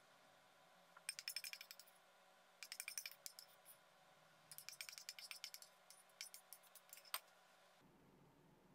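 Metal spoon clinking against a small ceramic bowl and a steel mixing bowl while salad is spooned out: faint runs of quick, light clinks about a second in, about three seconds in, and again from four and a half to seven seconds in, ending with one sharper clink.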